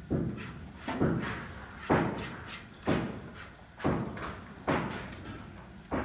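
Steady hammering: about six heavy knocks, roughly one a second, each ringing briefly.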